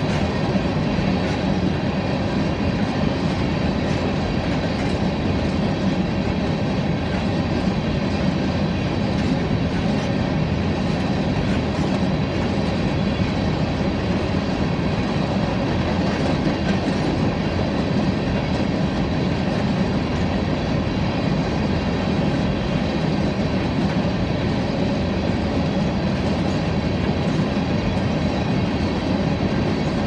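Freight train of covered grain hopper cars rolling past: a steady rumble and clatter of steel wheels on the rails that holds an even level throughout.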